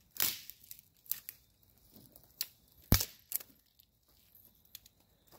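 Dry material being handled and broken: scattered crackles and cracks, with a sharp crack just after the start and the loudest snap about three seconds in.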